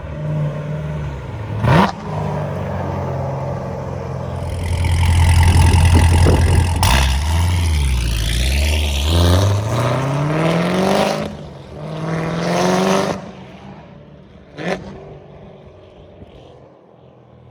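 Supercharged LT4 V8 of a C7 Corvette Z06 with Kooks 2-inch headers, a 3-inch X-pipe and stock mufflers, being revved: the exhaust note climbs and falls through several revs, loudest about four to seven seconds in, then settles lower near the end. Two short sharp cracks stand out, one just under two seconds in and one near fifteen seconds.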